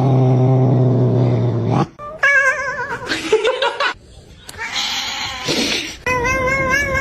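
A cat caterwauling: a long, low, drawn-out yowl, then higher wavering yowls after a short break, and another wavering yowl starting near the end.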